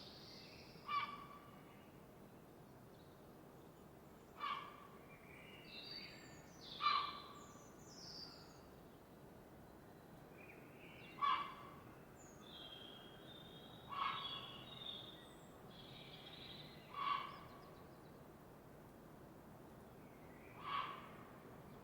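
Birds calling at dawn: one bird gives a short call with several stacked tones about every three to four seconds, seven times in all. Higher chirps and twitters from smaller birds come in between, over a faint steady hiss.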